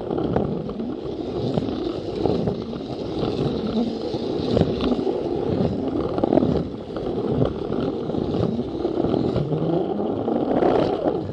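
Plarail toy train's small electric motor running with its plastic wheels and gears rattling along plastic track, heard close up from a camera riding on the train: a steady clattering rumble full of small clicks.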